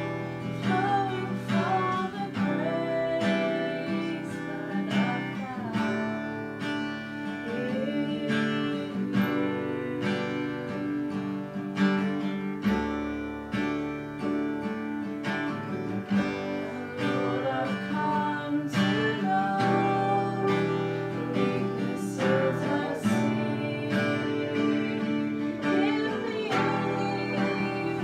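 A woman singing a slow worship song over a strummed acoustic guitar.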